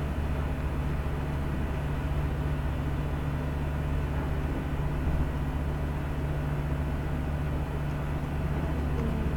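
Steady low hum of room background noise, unchanging throughout, with no speech.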